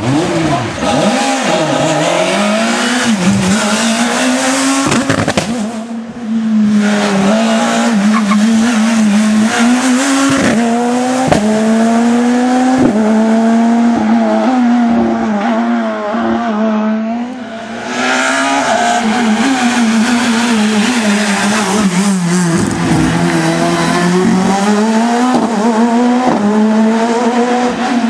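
Skoda Fabia S2000 rally cars' 2.0-litre four-cylinder engines at high revs through a series of flat-out runs, the pitch climbing and dropping sharply with each upshift, lift and downshift. The sound breaks off abruptly twice, about six and about eighteen seconds in, as one pass gives way to the next.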